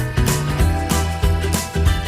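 Background music with a steady beat: drums about three hits a second over a bass line and held notes.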